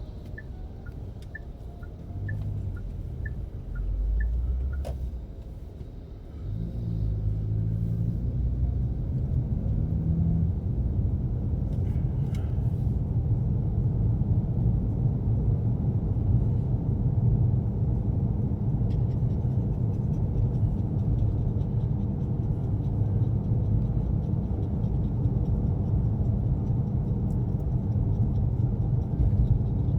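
Car heard from inside the cabin. The turn-signal ticks about twice a second for the first few seconds. Then the engine picks up as the car pulls away and accelerates, settling into a steady engine and road rumble.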